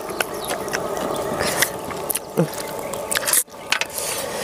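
Close-up biting and chewing of crispy jar-roasted rat, a run of small crunching and smacking clicks. The sound cuts out for an instant about three and a half seconds in.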